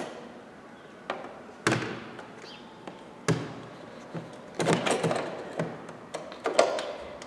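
Irregular sharp knocks and clicks of a homemade metal hook worked inside a car door, catching on the door's inner metal while fishing for the mirror's wiring connector to unplug it. The knocks come in a denser cluster about five seconds in.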